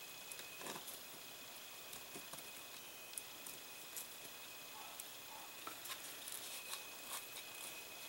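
Faint handling noises: scattered small clicks and rustles as a plastic scale-model interior panel and its fabric seatbelt strap are worked by hand, over a steady background hiss.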